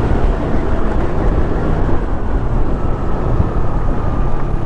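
Motorcycle running at speed on the road, with heavy wind rushing over the microphone; a faint whine slowly falls in pitch.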